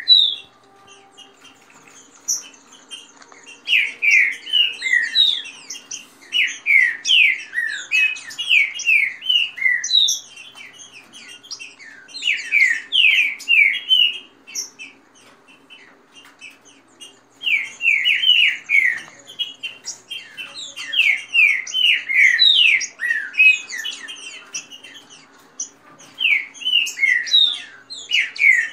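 Green-winged saltators (trinca-ferro) singing in loud bursts of quick, falling whistled notes. The phrases last a few seconds each, with short gaps between them: caged males singing against each other in rivalry.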